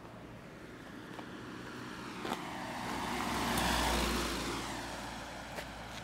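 A car drives past, its noise swelling to loudest about four seconds in and then fading away. The walker's footsteps tap a couple of times.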